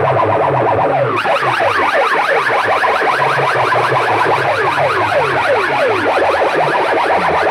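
DJ sound-box speaker system blaring an electronic siren-like effect: rapid, overlapping downward-sweeping chirps, with a low pulsing bass under them that thins out about a second in.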